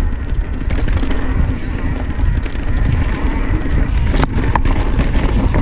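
Mountain bike riding fast down dirt singletrack: wind buffeting the microphone over the rumble of the tyres and the rattle of the bike. There are a couple of sharp clacks about four seconds in.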